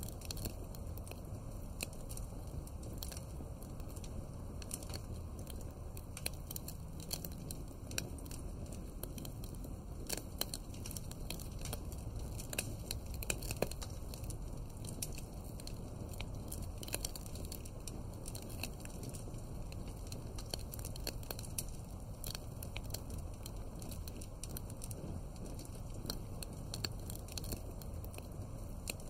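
Wood fire crackling: irregular pops and snaps over a steady low rumble of the flames.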